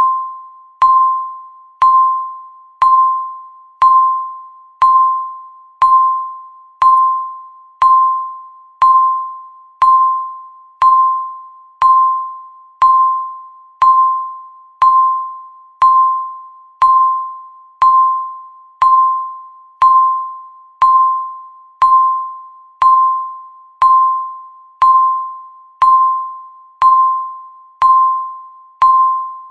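Countdown timer beeping once a second: each beep is a single clear tone that strikes sharply and fades away like a chime, marking off the seconds at an even pace.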